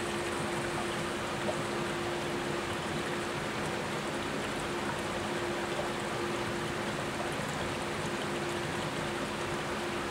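A 354-plate HHO hydrogen generator running, with a steady fizzing and bubbling of gas through water, over a steady low hum.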